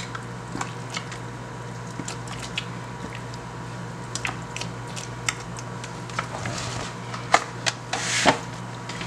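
Hands working a wet, chopped-herb seasoning into slits in a raw pork shoulder: soft squishing and scattered light clicks and taps. Near the end, a brief crinkly rustle as the meat is lifted in its aluminium foil pan, all over a steady low hum.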